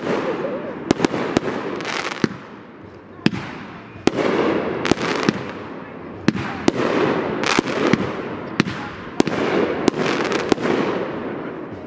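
Consumer aerial fireworks going off in quick succession: many sharp bangs of bursting shells, with a crackling hiss between them.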